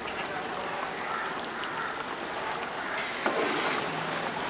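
Large pot of water at a rolling boil with basmati rice cooking in it: a steady bubbling, with a light knock about three seconds in.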